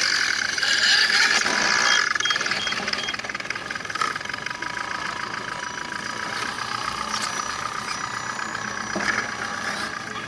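Electric motors and gearboxes of scale RC crawler trucks whining as they climb a loose dirt and gravel slope, loudest in the first two seconds, with a couple of short knocks from the trucks on the rough ground.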